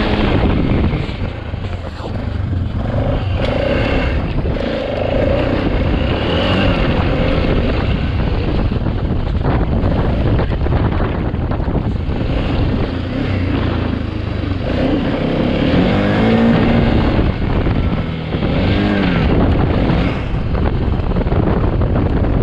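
BMW F650GS motorcycle engine running while the bike is ridden along a dirt trail. The revs rise and fall several times in the second half.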